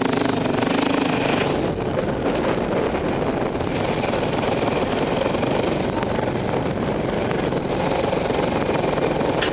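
Dirt bike engines running at a steady riding pace, mixed with a constant rush of wind noise on the microphone; a clear steady engine note in the first second or so blends into the rushing noise.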